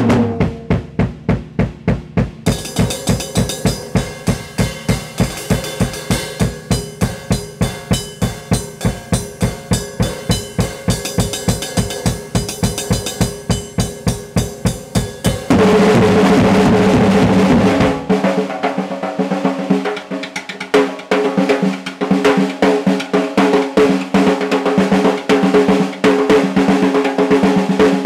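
Drum kit solo: a steady pattern of snare and bass drum strokes at about four a second, then about halfway through it breaks into fast, continuous drum rolls with the drums ringing.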